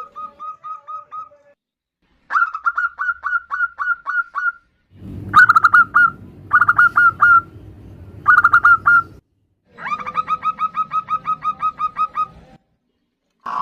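Zebra doves (perkutut) cooing: several bouts of quick, staccato, evenly repeated notes, the birds calling back and forth, given as a female calling to males. A low steady hum runs under the bouts in the middle.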